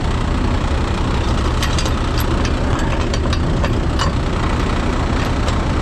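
Heavy truck diesel engine idling steadily, with a scatter of sharp metallic clicks in the middle.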